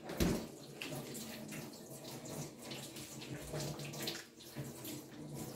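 Water running steadily from a kitchen tap, with a faint low hum underneath.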